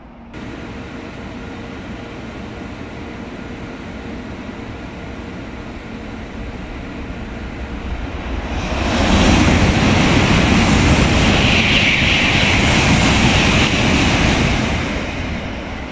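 N700A shinkansen passing through the station non-stop at high speed, about 288 km/h on straight track: a steady rumble as it approaches, swelling about eight seconds in into a loud rush of wheel, rail and air noise that holds for about six seconds and then eases off near the end.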